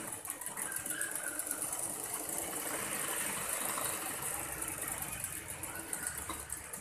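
Sewing machine running steadily, stitching through fabric with a rapid, even run of needle strokes.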